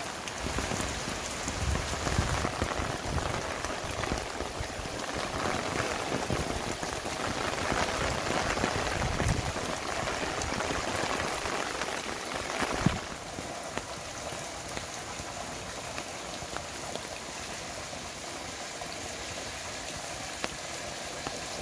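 Heavy rain falling steadily, a dense hiss of many drops. It is louder with a low rumble for the first dozen seconds, then drops to a quieter, even hiss after a single sharp knock about thirteen seconds in.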